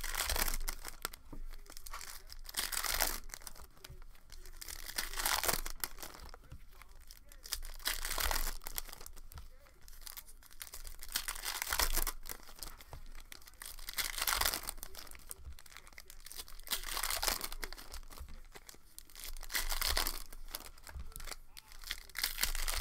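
Foil trading-card packs (2018-19 Optic Fast Break basketball) being torn open and their wrappers crinkled, in repeated bursts of tearing and rustling every two to three seconds.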